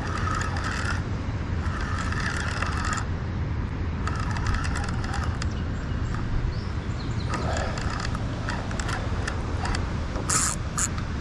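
NGT Camo40 carp spinning reel being cranked in several short spells, a ratcheting, clicking whirr, as a hooked carp is wound in.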